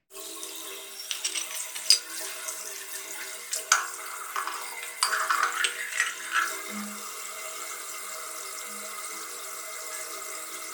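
Water running from a tap and splashing, with several sharp knocks and rattles between about one and seven seconds in.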